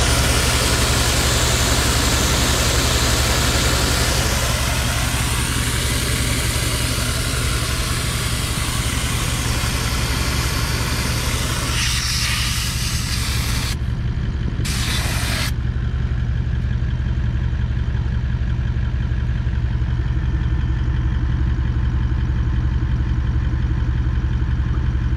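Car engine running steadily with a low, even rumble.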